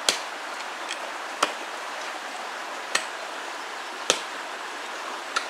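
Five sharp knocks, about one every second and a half, over a steady hiss.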